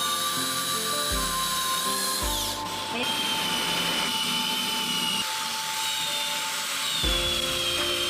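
Corded electric drill with a wood-boring bit running as it bores holes into the edge of a wooden door, a steady motor whine that drops in pitch about three seconds in. Background music plays alongside.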